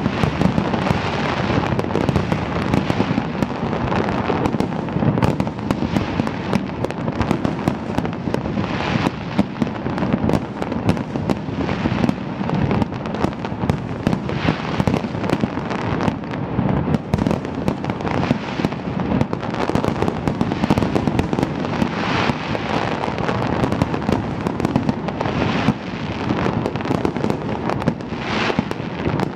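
Fireworks display: many bangs and crackles overlapping without a break, shells bursting several times a second.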